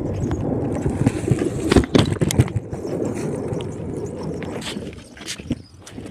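Scooter wheels rolling over rough ground: a continuous rumble with scattered clicks and knocks that fades out near the end.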